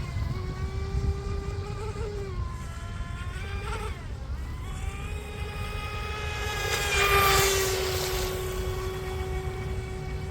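Small electric RC speedboat with a 28 mm brushless motor on a 3S lipo, running laps: a steady motor whine whose pitch dips and rises with the throttle through the turns. It swells loudest with a spray-like hiss about seven seconds in as the boat passes close.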